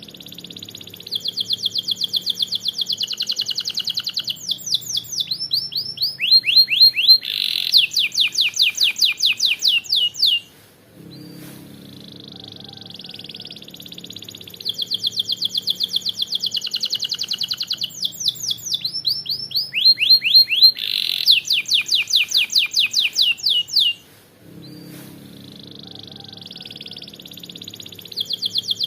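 Domestic canary singing continuously: long phrases of fast rolling trills and quick up-and-down sweeps, each phrase lasting about ten seconds. The same phrase comes back twice with a short pause between, as in a looped training recording.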